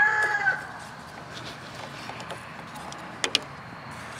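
The drawn-out end of a rooster's crow, holding one pitch and then fading out about half a second in. After it comes a faint steady background, with a couple of light clicks about three seconds in.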